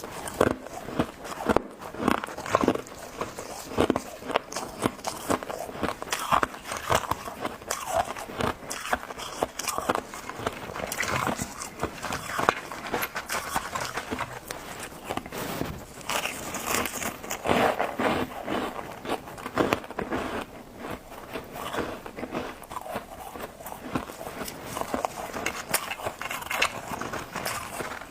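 Close-up crunching of freezer frost ice being bitten and chewed: a dense, irregular run of sharp crackling crunches.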